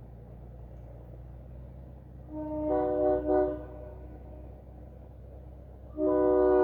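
Train horn mounted on a Cummins diesel, sounding a chord of several notes together: a short blast with a brief break in the middle about two and a half seconds in, then a louder long blast starting near the end. A steady low drone runs underneath.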